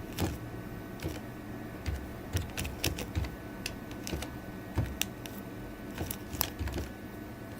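Computer keyboard keys tapped in an irregular run of clicks as a password is typed in.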